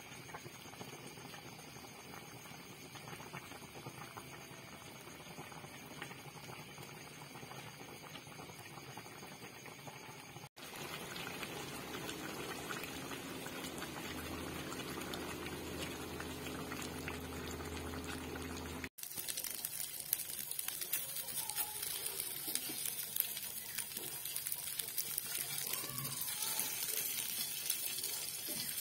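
Chicken pieces simmering in a spiced sauce in a steel wok, bubbling steadily. After a cut, the thickened sauce bubbles, and after another cut, about two-thirds of the way in, chicken pieces sizzle in a frying pan with a brighter hiss and small pops.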